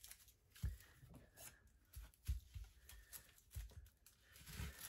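Faint, scattered crackling and rustling of dry red onion skin being peeled off by hand, with a few soft knocks.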